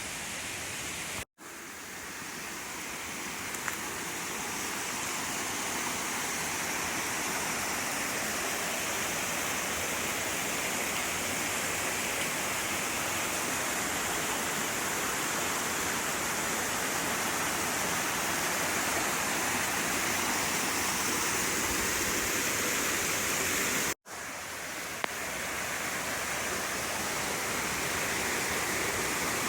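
Steady rush of a waterfall, a continuous noise of falling water. It drops out abruptly twice, about a second in and again near the end, each time fading back in.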